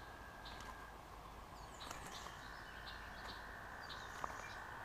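Faint outdoor ambience: scattered short bird chirps over a steady faint high hum, with a single sharp click about four seconds in.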